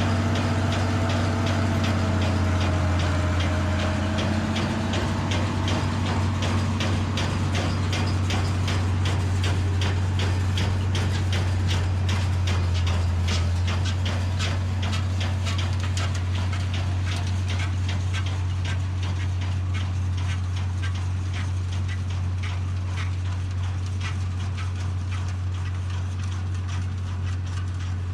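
Massey Ferguson 3505 tractor's diesel engine running steadily while baling, with a fast, regular clicking clatter over it through most of the stretch.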